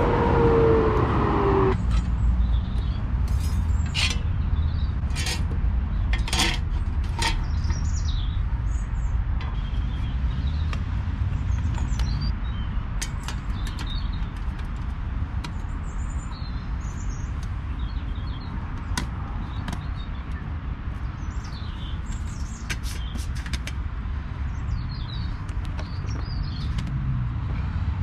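Steady low rumble of road traffic on the surrounding roundabout, with one vehicle passing at a falling pitch in the first two seconds. Small birds chirp throughout, and a few sharp clicks of camping gear being handled come a few seconds in.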